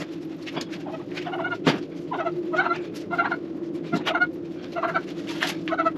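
White domestic turkey calling with short repeated clucks, about ten in a few seconds, over a steady low hum. A sharp knock about a second and a half in.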